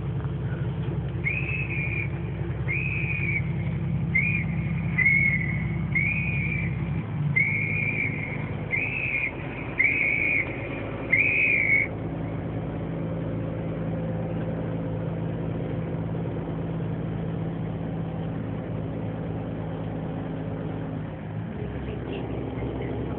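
Coach bus running, heard from inside the passenger cabin: a steady low engine drone that changes about seven seconds in. Over it, in the first twelve seconds, a string of about nine short, high, whistle-like notes.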